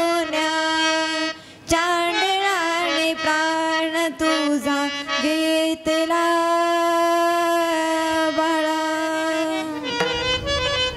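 A woman singing a slow kirtan melody in long held notes with ornamented turns, breaking off briefly a little over a second in. Near the end the melody shifts lower and other sounds join.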